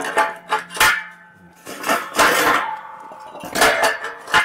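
Galvanized steel brackets clinking and clanking against square steel tubes as they are slid on and fitted by hand: several sharp metal knocks with brief ringing, and a short scrape about two seconds in.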